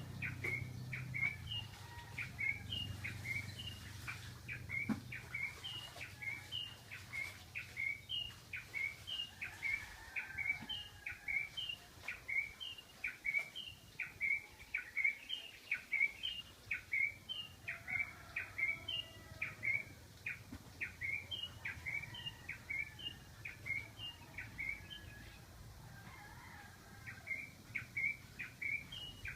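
A bird calling over and over with a quick run of short, high notes, heard as "Duterte, Duterte, Duterte". The phrases come about one or two a second, with a couple of brief pauses, and fainter calls from other birds lie underneath.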